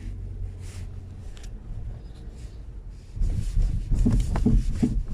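Skoda Kodiaq cabin rumble as the car rolls slowly, then from about three seconds in a run of low, dull knocks from the rear right suspension: the knock being hunted for.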